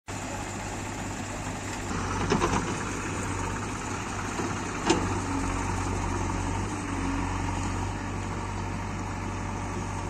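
Diesel engines of a JCB 3DX backhoe loader and a Mahindra tractor running steadily. About two seconds in there is a short clatter of rocks and earth dumped from the backhoe bucket into the tractor's trolley, and a single sharp clank comes near five seconds.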